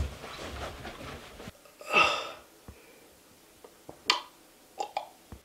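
A short breathy vocal sound, like a gasp or huff, followed by a few scattered light clicks and knocks, the sharpest about four seconds in. A low background rumble cuts off suddenly about a second and a half in.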